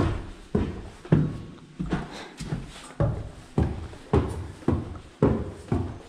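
Footsteps on bare wooden stair treads and subfloor, even heavy thuds about two a second.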